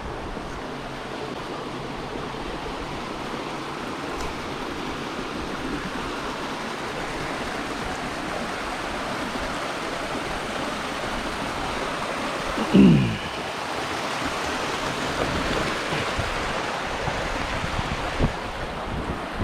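Steady rush of flowing water from a creek and waterfall, with some wind. About 13 seconds in, a brief louder sound drops in pitch.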